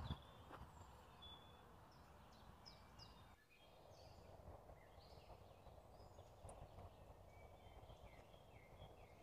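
Faint woodland birdsong: scattered short, high chirps and quick falling whistles from small songbirds over a quiet background hiss, with a brief drop-out about three and a half seconds in.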